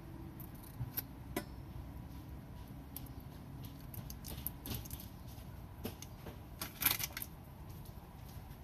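Kitchen scissors clicking and a small seasoning packet rustling as it is cut and emptied over a bowl of instant noodles, with a louder crinkle near the end.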